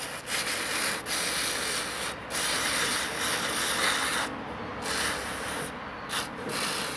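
Aerosol intake cleaner sprayed through a thin extension straw onto a small carburetor shaft, hissing in several bursts: two long ones of about two seconds each, then a few shorter ones.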